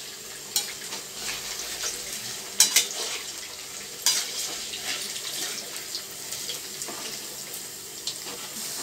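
Batter-coated potato cubes deep-frying in hot oil, a steady sizzle, with a few sharp clicks as a metal slotted spatula stirs them against the pan.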